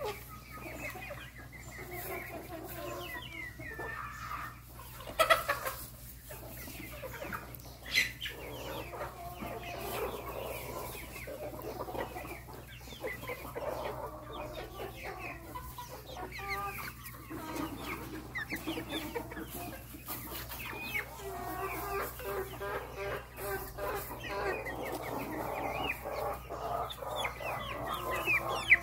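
Several chickens clucking continuously in short, overlapping calls, with two louder sharp sounds about five and eight seconds in.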